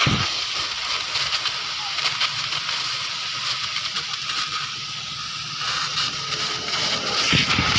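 Compressed air hissing steadily from an air blow gun held against the oil hole in a Yamaha Vixion's crankshaft end. It is trying to blast clear a clogged oil passage that should feed the connecting rod; the mechanic blames this blockage for the engine's overheating.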